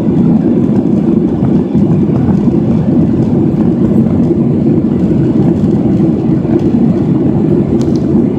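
Steady jet-airliner cabin noise heard from a window seat: the even drone of the engines and rushing air while the plane climbs toward cruising altitude.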